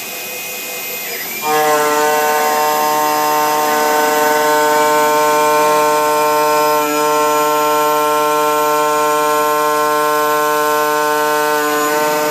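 A CNC mill's 12.7 mm three-flute end mill at 7000 rpm cutting a metal block with a 5 mm depth of cut. About a second and a half in the cut takes hold and a loud, steady pitched whine sets in, carrying on to the end with one brief dip in the middle.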